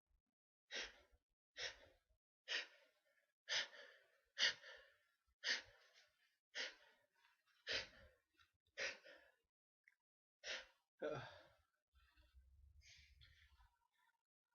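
A person sneezing over and over in a rapid fit: about a dozen short, sharp sneezes, roughly one a second, with a longer gap before the last few.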